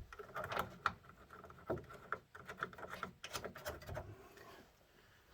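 Scattered light clicks and taps from parts being handled.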